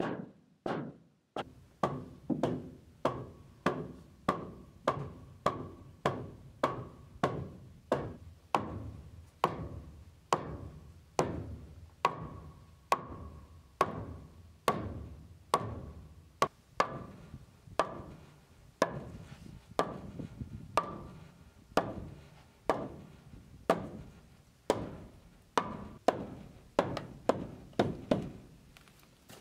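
Large log-headed wooden mallet repeatedly knocking pine floorboards, driving them tight along the dovetail rebates in the floor joists. A steady run of hard wooden knocks, about two a second at first and a little slower toward the end.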